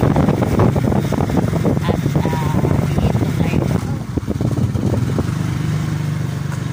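Wind rumbling on the microphone, then from about four seconds in a motor scooter's engine running steadily under way, with wind noise over it.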